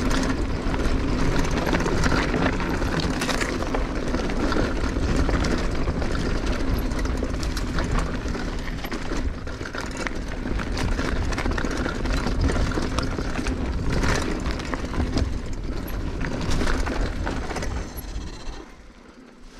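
Mountain bike rolling fast down a loose dirt and gravel trail: tyre noise and a constant rattle of the bike with many small knocks over the bumps, plus low rumble on the microphone. The noise dies down near the end as the bike slows.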